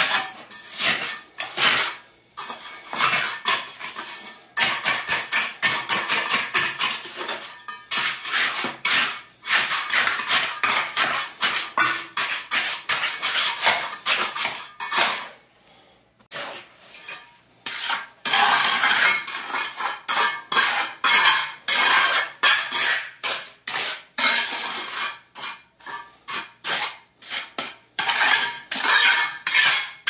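Steel trowel scraping and smoothing fresh concrete mix into a patch in a slab floor, in quick repeated gritty strokes, with a short pause about halfway through.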